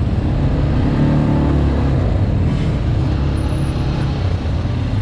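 ATV engine running steadily at an even speed, a continuous low engine note with road and wind noise.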